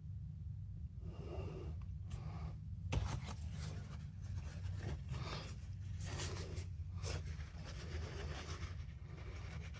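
Soft, irregular scraping and rubbing strokes of small hand work on a ratcheting drill adapter, several a second, with a couple of sharper clicks, over a low steady hum.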